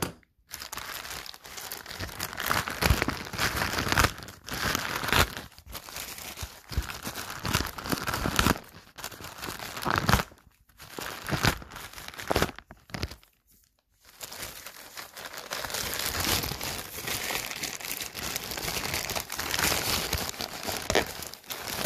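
Plastic poly mailer and the plastic bags inside it being torn open and handled by hand: irregular crinkling and rustling with short pauses, denser and steadier over the last several seconds.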